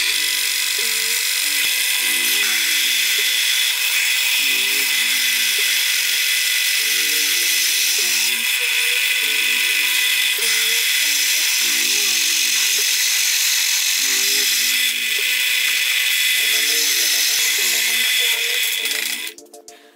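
Drill press cutting into thick steel plate, a steady high-pitched grinding hiss that cuts off abruptly near the end. Background music plays underneath.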